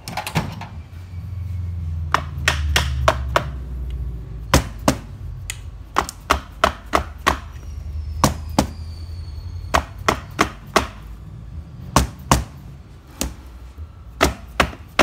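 Repeated blows of a red soft-faced mallet on the motor housing of a DTI205 core drilling machine, struck in quick runs of two to six taps, to knock the housing's top half loose so the armature can be removed.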